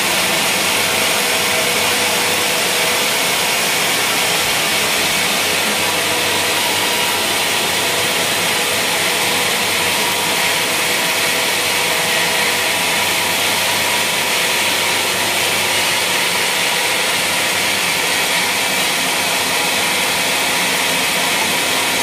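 Sawmill band saw cutting lengthwise through a wadang (bayur, Pterospermum javanicum) log: a loud, steady, mostly high-pitched sawing noise with a faint steady hum beneath it, unchanging throughout.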